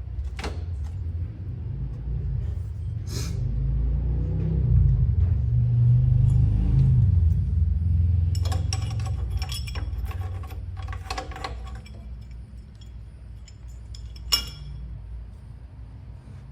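Metal parts and tools clinking against each other in a cluster of short ringing strikes, with one sharper click near the end. A low rumble swells and fades underneath in the first half.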